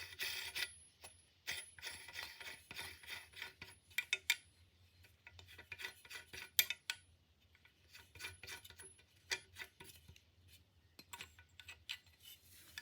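Metal parts of a Stanley hand plane being handled: irregular small clicks, taps and rubbing scrapes as the blade assembly is worked loose.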